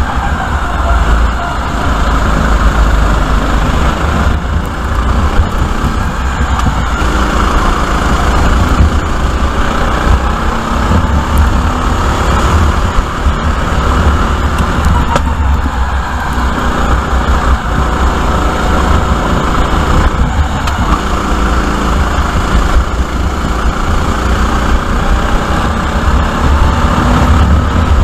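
Sodi RT8 rental kart's engine running hard, heard from on board during a racing lap, its pitch rising and falling as the driver accelerates and lifts through the corners.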